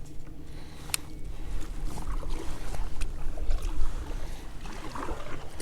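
Kayak on open water: paddle splashes and a sharp knock about a second in, with wind rumbling on the microphone.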